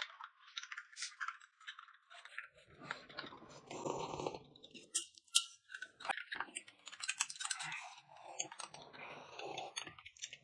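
Close-miked eating sounds: chewing, with small spoons clicking against glass cups of corn porridge in short irregular taps.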